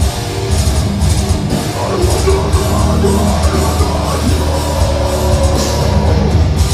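Loud live deathcore played by a full band: distorted electric guitars, bass guitar and a drum kit.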